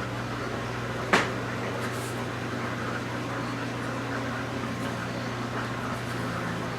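Steady mechanical hum, like a fan or air-conditioning unit running in the room, with one sharp click about a second in.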